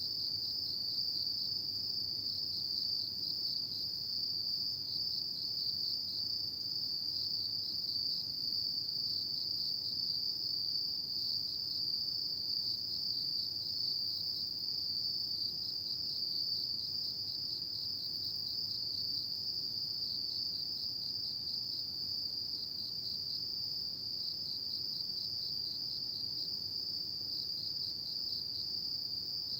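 A chorus of autumn crickets: a continuous high-pitched trill, with stretches of rapid pulsed chirping from other insects coming and going beneath it.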